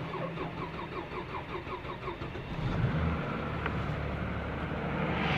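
Toyota Crown V6 cold-cranking at −34 °C after standing over a day: the starter turns the engine over slowly at about five beats a second for two seconds, then it catches near the three-second mark and settles into a steady run.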